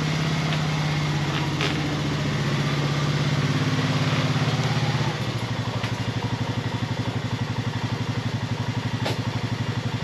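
A 2013 Honda Foreman Rubicon ATV's single-cylinder engine, warmed up, running steadily. About halfway through it settles into an idle with a fast, even throb.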